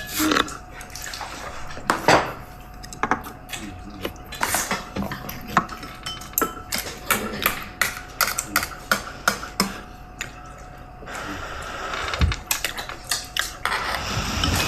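Spoons and tableware clinking and knocking against bowls and plates during a meal, many short irregular clicks.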